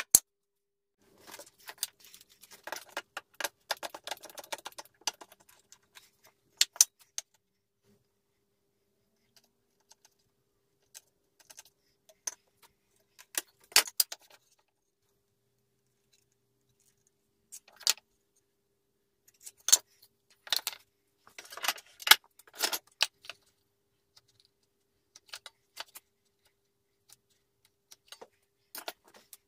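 Wooden boards and hand tools being handled, set down and moved on a wooden workbench: scattered clacks and knocks in short clusters with quiet gaps of a few seconds. A faint steady hum lies underneath.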